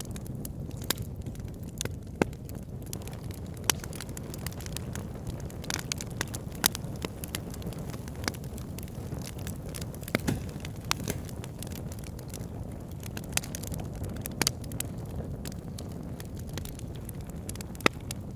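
Wood fire burning in a fireplace: a steady low rumble of flames with irregular sharp crackles and pops, a few of them louder than the rest.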